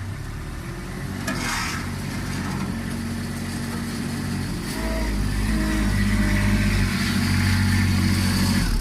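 Backhoe engine running, rising in speed and getting louder about halfway through, with a short hiss or clatter about a second in.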